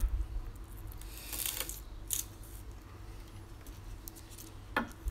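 Large chef's knife slicing through garlic cloves and knocking on a wooden chopping board, about four separate sharp cuts, as the tops and bottoms of the cloves are trimmed off.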